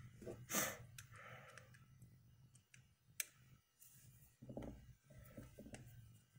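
Quiet clicks and handling noises from a small white plastic plug being turned in the hand while a screwdriver works its terminal screws. A brief scrape about half a second in, then scattered sharp clicks, one standing out about three seconds in.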